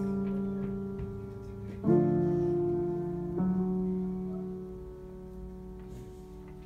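Grand piano playing sustained chords, struck about two seconds and three and a half seconds in, each left to ring and slowly die away: the closing chords of the piece.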